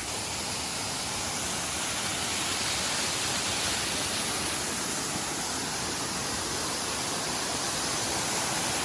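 Waterfall: a steady rush of falling water, swelling a little in the first few seconds.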